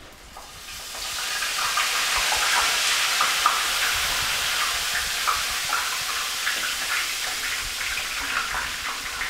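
Deep-frying sizzle as flour-dredged grasshoppers are poured into oil at about 350 °F. It builds over the first second into a steady hiss with crackling pops, easing a little toward the end.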